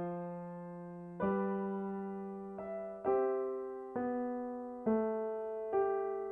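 Slow piano arrangement of a film-score melody: a chord is struck about once a second, and each is left to ring and fade before the next.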